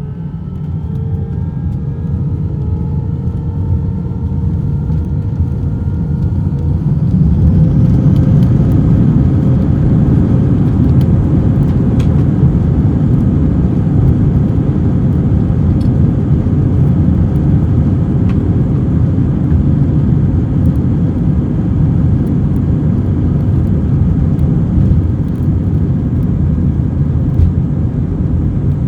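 Airbus A321-200's jet engines spooling up, heard from inside the cabin: a whine climbs in pitch over the first seven seconds or so as the level rises. Then a loud, steady rumble with scattered rattles and clicks holds on, consistent with the takeoff roll.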